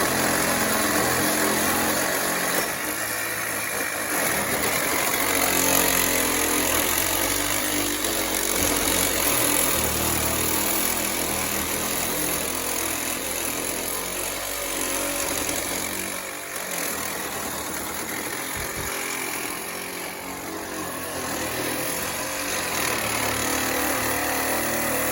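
Cordless power saw with worn, toothless blades, cutting steel through a scooter's rear shock absorber. It runs continuously, the motor note wavering as the blade bites.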